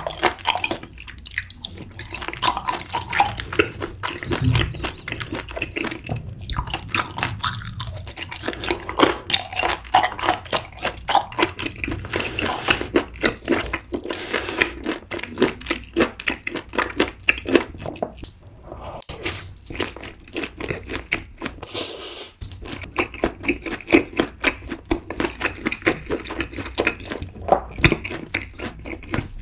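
Close-miked mukbang eating sounds: wet chewing and mouth smacking, with rapid clicks and squelches, broken by a few short pauses.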